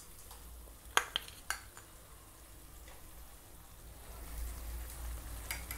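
Three light clicks of a steel spoon on the nonstick pan as ghee-roasted raisins and melon seeds are tipped onto thick dates halwa, over a faint low hum.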